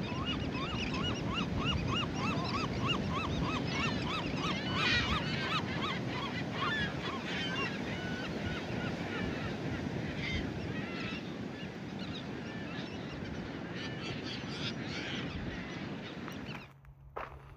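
A flock of birds calling over one another, with one bird repeating a quick series of rising-and-falling honking notes about three times a second, over a steady rushing background. The calls cut off abruptly near the end.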